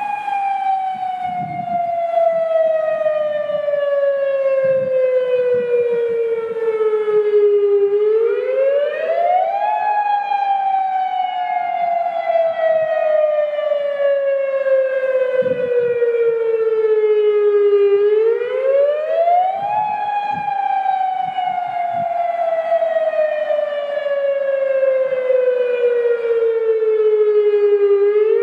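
Federal Signal Modulator 6024-B electronic siren sounding the All-Hazard Alert Broadcast tsunami wail as a drill. Its pitch climbs quickly, then slides slowly down over about eight seconds, a cycle that repeats about every ten seconds.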